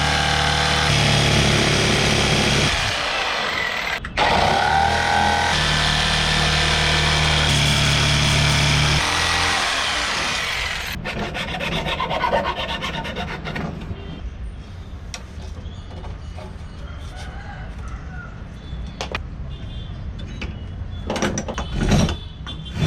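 Tools working the wood of a cricket bat handle: loud, continuous rasping for about the first eleven seconds, then quieter scraping with scattered clicks.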